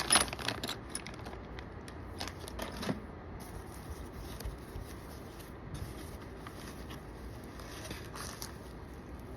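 Plastic packaging crinkling and small parts clicking as kit pieces are handled, busiest in the first three seconds, then only faint rustles over a steady low hiss.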